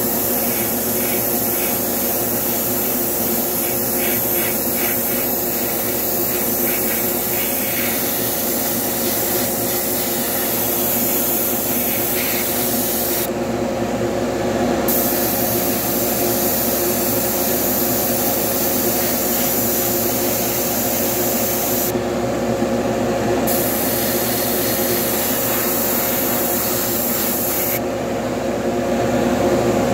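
Airbrush spraying in a steady hiss, cut off three times for a second or so as the trigger is let go, over a steady motor hum.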